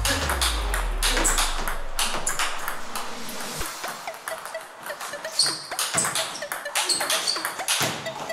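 Table tennis rally: the ball clicks sharply off the rackets and the table in quick, irregular succession. Background music fades out within the first two seconds or so.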